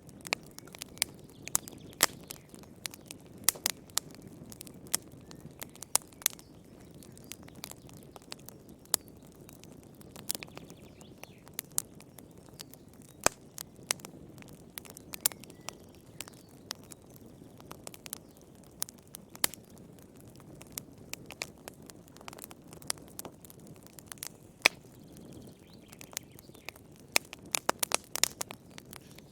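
Wood fire burning in a fireplace, crackling and popping: many sharp, irregular pops over a soft, steady low rush of flame, with a quick cluster of pops near the end.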